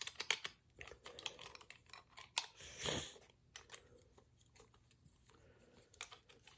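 Small plastic toy parts being handled and fitted together: a scatter of light clicks and taps, busiest in the first three seconds and sparser after.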